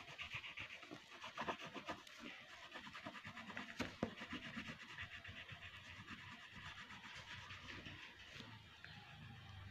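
Faint, quick back-and-forth scratching of a colouring tool on paper, with a sharper tap about four seconds in.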